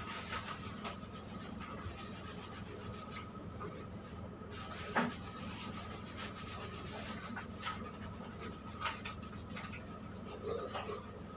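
Hands scrubbing shampoo lather into a bulldog's wet coat, giving short rubbing sounds over a steady machine hum with a faint high whine. A sharper knock about five seconds in.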